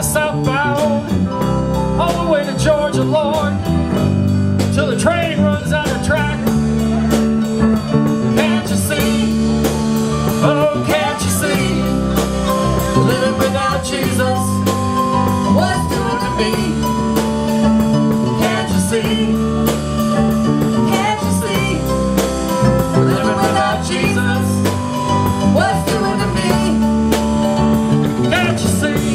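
Live blues band playing through a PA: electric guitar, bass guitar and drums keep a steady groove, with bending melodic lines over it.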